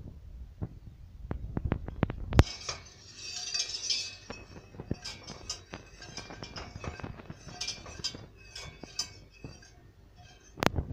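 A stirring utensil clinking and scraping irregularly against the inside of a stainless steel pot as pudding is stirred, with two louder knocks, one about two and a half seconds in and one near the end.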